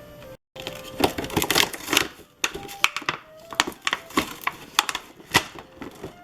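Toy cash register accessories handled by hand: an irregular run of sharp clicks, taps and rustles of plastic and paper pieces. Faint music runs underneath.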